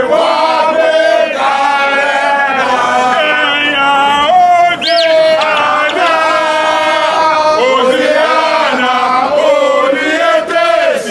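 A group of football supporters chanting a song together in unison, with held notes. A brief shrill, rising-and-falling note cuts through about five seconds in.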